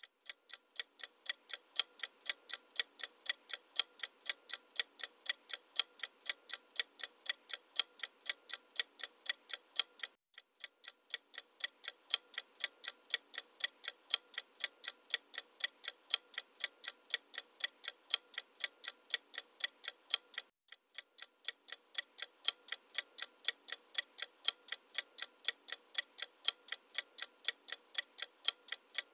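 Clock-ticking sound effect used as a quiz countdown, a steady run of sharp ticks at about three a second. The ticking breaks off briefly about ten seconds in and again about twenty seconds in, then resumes at the same pace.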